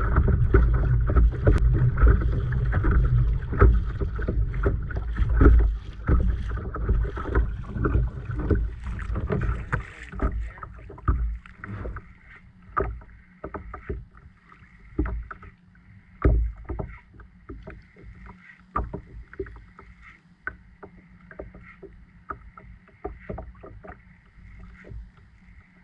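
Wind buffeting the microphone with a heavy low rumble that dies down about ten seconds in. Small waves then slap against the kayak hull in irregular knocks.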